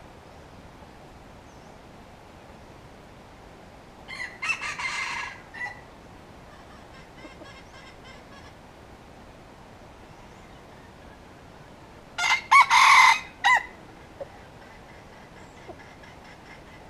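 Red junglefowl (wild rooster) crowing twice, about eight seconds apart, each crow a short broken call that ends with a clipped final note; the second crow is the louder.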